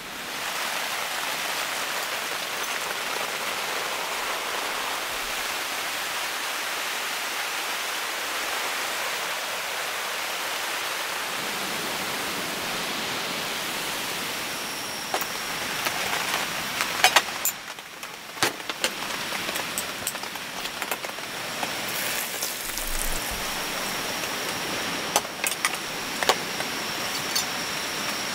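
Steady hiss of rain falling. In the second half, scattered sharp clicks and clinks sound over it.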